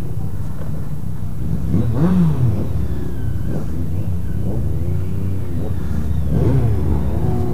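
Motorcycle engine pulling away and accelerating, its pitch rising and falling with gear changes about two seconds in and again near six seconds, over a steady low rumble.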